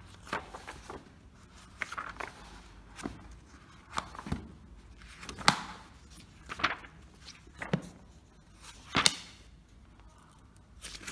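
Paper pages of a thick handbook being flipped by hand, with a sharp paper flick or slap about once a second.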